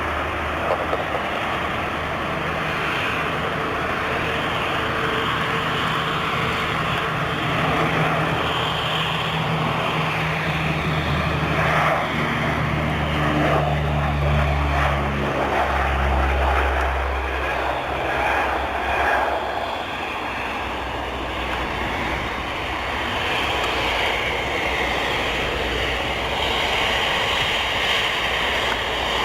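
Antonov An-12's four turboprop engines at takeoff power, a steady droning roar that grows to its loudest about halfway through and then eases off as the aircraft moves away.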